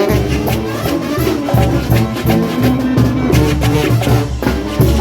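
Brass band (banda) playing an upbeat Latin dance tune: horns over drums and bass with a steady beat.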